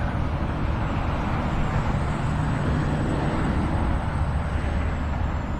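Gusty wind buffeting the microphone in a steady low rumble, with the thin, high, faint whine of a UMX Raiden ultra-micro electric RC plane's motor flying overhead.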